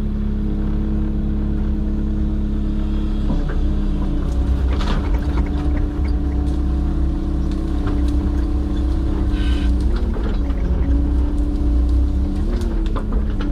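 Excavator diesel engine running at idle with a steady hum, its pitch dipping briefly a few times as the hydraulics take load, with a few sharp cracks mixed in.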